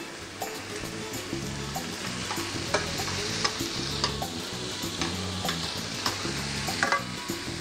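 Chopped onions, carrots and celery sizzling in a stainless steel sauté pan just after going in. Metal tongs stir them, with scattered clicks and scrapes against the pan.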